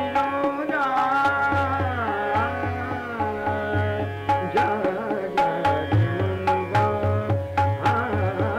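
Hindustani classical vocal music in Raag Kafi Kanada: a male voice sings gliding, ornamented phrases over a sustained steady-pitched accompaniment, with tabla strokes and deep bass-drum pulses keeping the beat.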